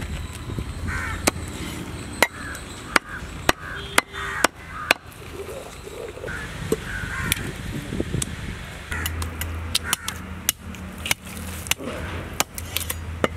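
Meat cleaver chopping mutton on a wooden log chopping block: a quick run of sharp chops in the first five seconds, then lighter, scattered ones. Crows caw repeatedly in the background.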